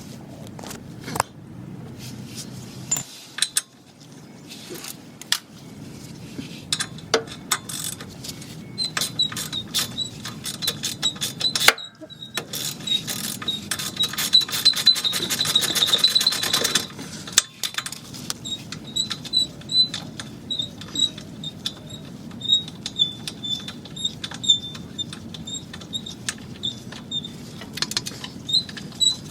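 Metal tools clinking and a socket ratchet clicking as brake caliper bolts are worked loose, with a fast, steady run of ratchet clicks for several seconds in the middle.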